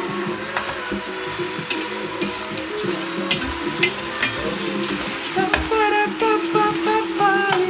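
Chicken frying and sizzling in a pan as it is stirred, with a utensil clicking against the pan several times in the first half. Smooth jazz plays underneath, and a melody line comes in near the end.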